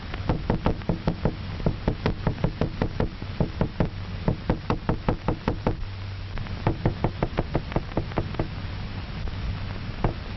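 A hammer knocking repeatedly on a tabletop, about four sharp knocks a second, with a short pause a little past the middle: the sound stimulus played to the isolated dog's head.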